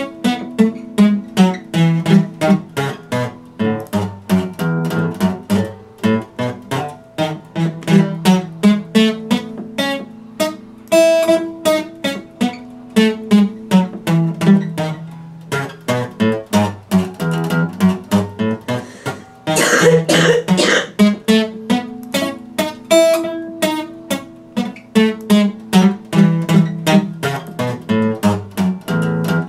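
Epiphone acoustic guitar played solo: a steady, repeating pattern of plucked notes and chords, with a short rough burst of noise about two-thirds of the way through.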